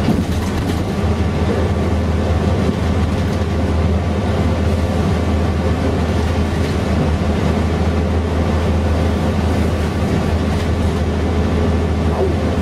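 Mercedes-Benz O407 bus under way, heard from inside the cabin: the steady drone of its six-cylinder diesel engine with road noise.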